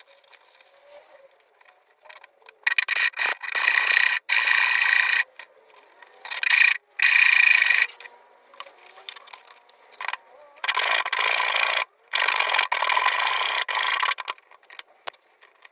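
A tool grinding away at a piece of steel angle iron in three runs of a second or two each, with short pauses between.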